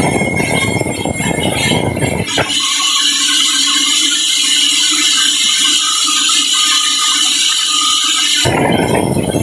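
Sawmill saw cutting through a large teak log, a loud steady rushing noise. About two and a half seconds in the low, full part of the noise drops out abruptly, leaving a thin high hiss, and it comes back abruptly near the end.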